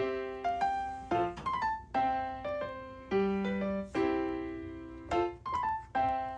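Background music: a light piano-style keyboard melody, notes struck and fading, repeating a short phrase about every two seconds.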